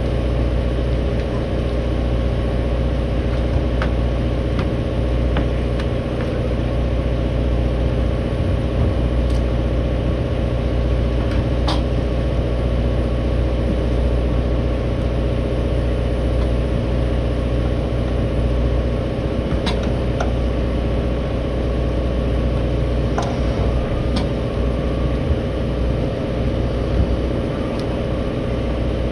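An engine running steadily, a constant low drone, with a few faint clicks and knocks.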